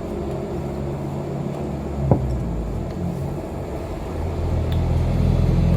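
An engine running, a steady low hum that grows louder over the last couple of seconds, with a single sharp knock about two seconds in.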